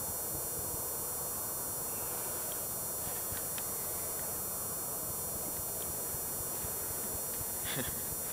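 Steady hiss of an empty, gutted arena heard through a camcorder microphone, with a few faint clicks and taps.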